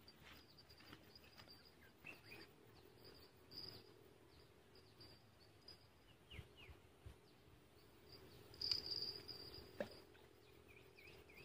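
Faint insect chirring: a thin high-pitched tone in pulses that swells briefly near the end, with a few faint bird chirps and a single click.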